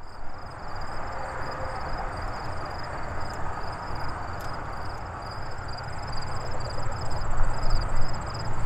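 Steady outdoor rushing noise that grows slowly louder toward the end, with a faint high chirp repeating evenly over it.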